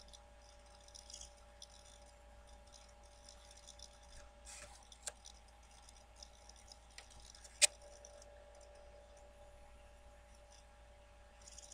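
Quiet room tone with a faint steady hum and a few soft clicks from a nail polish brush and its glass bottle being handled, with one sharper click a little past halfway.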